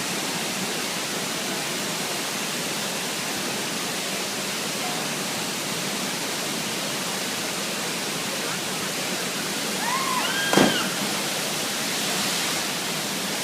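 Waterfall rushing, a steady even roar of falling water. About ten seconds in, a short voice call and a sharp knock rise briefly above it.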